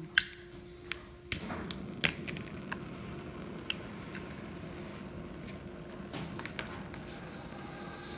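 Lighter clicks and small knocks of hands at the burner of a 16-cylinder Stirling engine model as it is lit, then a steady faint hiss with a few scattered ticks while the burner heats the cylinders. The engine is not yet turning.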